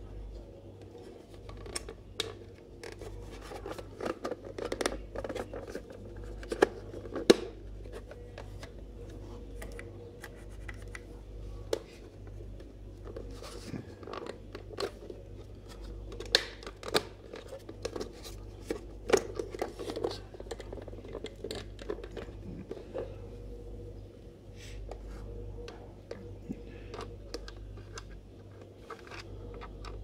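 Plastic housing of a Philips Pelican FC6050 handheld vacuum cleaner being pried open along its seam with a thin tool: irregular scraping and clicking of plastic, with sharper snaps of the clips about seven seconds in and several more in the second half. A steady low hum runs underneath.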